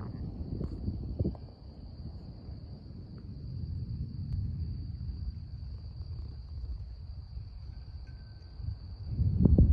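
Crickets chirping in a steady, even high-pitched chorus, over a low, uneven rumbling noise that grows louder about nine seconds in.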